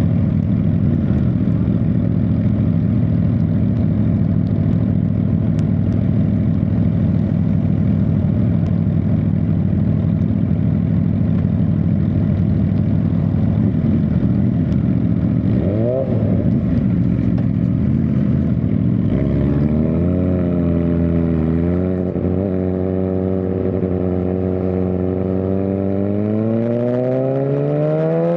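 Suzuki GSX-R1000R's inline-four engine heard on board while riding, holding a steady pitch for most of the stretch. About twenty seconds in the pitch dips and wavers as the throttle is eased, then climbs steadily near the end as the bike accelerates.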